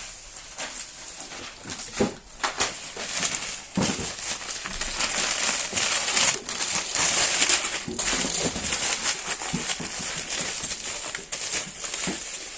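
Honeycomb (beehive) packing paper rustling and crinkling as it is wrapped around a stack of bamboo-fibre plates: continuous rustling dotted with short sharp crackles, loudest about halfway through.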